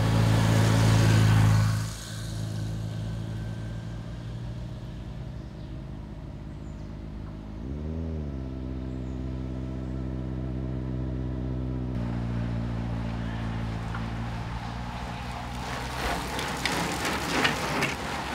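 Engines of the race's escort motorcycle and cars: a loud motorcycle engine passes close at the start, then a steady engine hum with a brief rev about eight seconds in. Near the end, clicks and a rising rush come up as the bicycle group nears.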